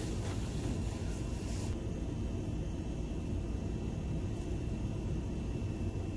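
Steady low rumble of a car idling, with a faint high steady whine that comes in about two seconds in as a soft hiss stops.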